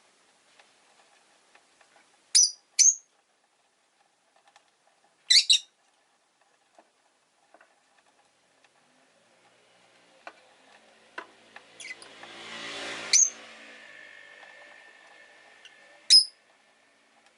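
Rosy-faced lovebird giving short, sharp high chirps, about five in all: two close together, then single calls spread out, amid light ticking. A rushing noise of passing street traffic swells and fades in the middle.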